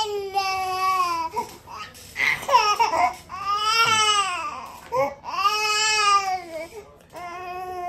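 Baby crying: a run of long wails that rise and fall in pitch, about four of them, with a ragged, broken cry between the first two. The parent guesses the baby is getting sleepy.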